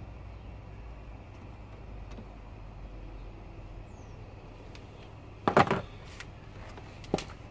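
A steady low hum, then a brief loud clatter of sharp knocks and clicks a little past halfway, followed by a few single clicks.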